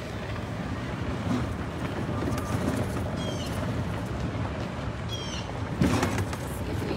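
Steady low rumble of a cart driving along a path, with wind on the microphone. Short series of high chirps come and go twice, and a sharp knock sounds near the end.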